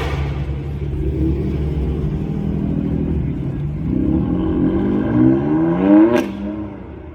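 A modified car's engine and exhaust running with a low rumble, then revved about four seconds in, the pitch climbing for two seconds before it cuts off suddenly with a short sharp noise.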